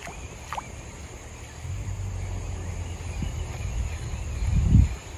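Steady high insect drone over a low rumble, with a brief falling whistle about half a second in. A loud low buffet or knock on the microphone comes near the end.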